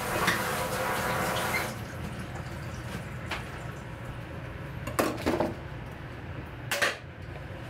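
Tap water running into a stainless steel sink, shut off about two seconds in, then a few scattered knocks and clatters of kitchen things against the steel sink, the loudest near the end.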